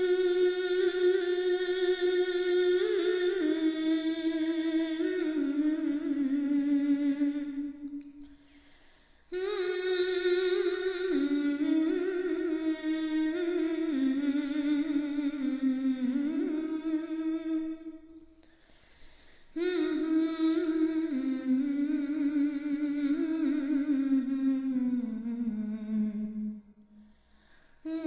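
A voice humming a slow, wordless melody in long held phrases of about eight seconds each, with short pauses between them; a new phrase begins near the end.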